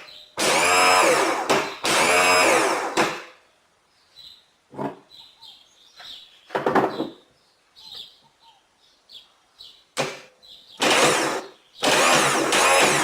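Power driver running in short bursts, its motor pitch rising and falling as it runs in the starter motor's mounting bolts: two long runs at the start, a shorter one in the middle, and two more near the end.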